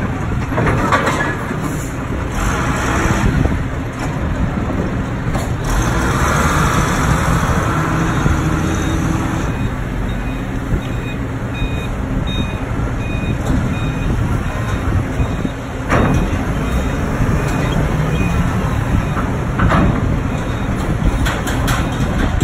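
Forklift engines running as the forklifts move over a ship's steel loading ramp. A reversing beeper sounds in a repeated series of beeps through the middle, and there is a single knock about two-thirds of the way through.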